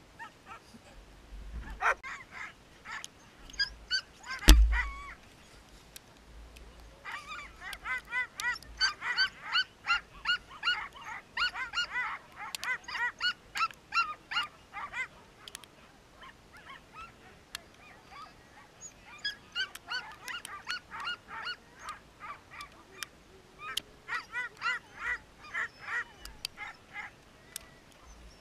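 Sled dogs barking and yelping, many short high calls in fast overlapping runs with a lull in the middle. A sharp thud about four and a half seconds in is the loudest sound.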